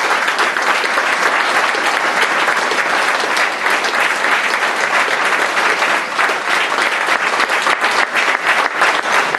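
Audience applauding: many hands clapping in a steady, dense patter throughout.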